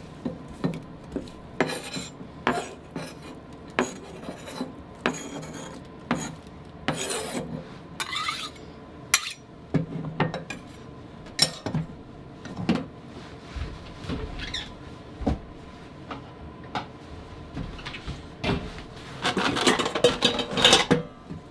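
Kitchen knife chopping a vegetable on a wooden cutting board: irregular sharp knocks, with short scrapes as the blade and hand sweep across the board. Near the end, stainless steel bowls clatter against each other as they are lifted from a dish rack.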